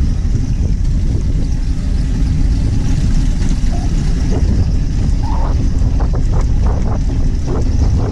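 Motorcycle running at low speed along a rough dirt track: a steady, dense low rumble of engine and wind.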